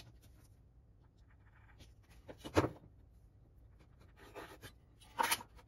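Faint pencil strokes marking the underside of a wooden cabinet, in a few short scratchy bursts about two seconds in, again near the end, with a quiet handling knock among them.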